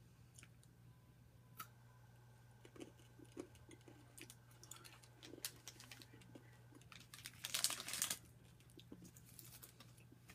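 Faint crunching and small clicks of someone chewing Coffee Nut M&M's, with one short, louder rustle about three-quarters of the way through.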